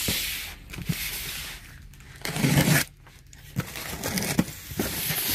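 Cardboard cartons being handled and the packing tape slit with a box cutter: several bursts of scraping and tearing, the loudest a heavier scrape-and-thump about two and a half seconds in.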